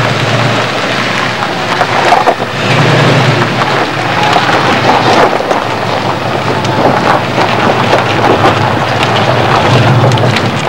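A pickup truck drives slowly past at close range, then many people walk past on foot, all under a loud, rough, steady noise like wind on the microphone.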